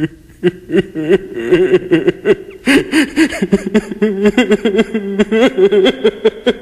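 Voices laughing and chuckling in quick repeated syllables, growing denser and louder about two and a half seconds in.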